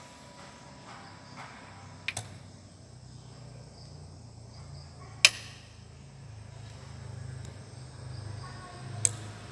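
Sharp clicks from a home-built power amplifier being switched: two close clicks about two seconds in, the loudest click midway as the rocker power switch is pressed, and one more click near the end as the speaker-protection relay engages after its few-second delay. A low hum rises underneath from about three seconds in.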